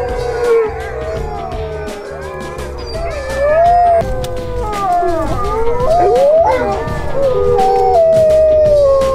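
A chorus of sled huskies howling: several long howls overlapping, each gliding up and down in pitch, with one long falling howl near the end.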